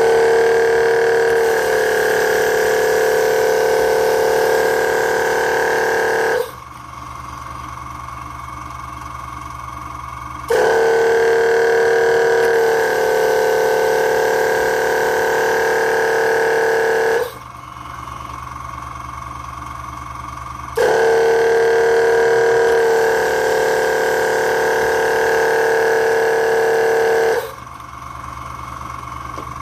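Mushroom-picking gantry robot working through repeated pick cycles, making a steady, loud whine with a few fixed pitches. The whine lasts about six and a half seconds, drops to a quieter steady tone for about four seconds, and comes back, three times in all.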